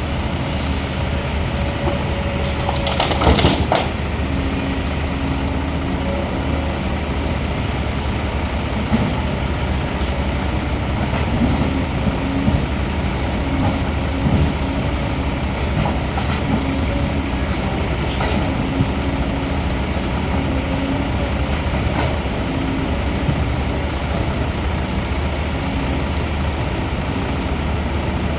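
Heavy diesel machinery, such as an excavator, running steadily under work, with a loud clatter about three seconds in and occasional knocks and clanks.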